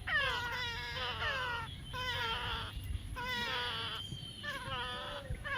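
Baby parrot giving a string of short, crying calls, each one falling in pitch, about one a second.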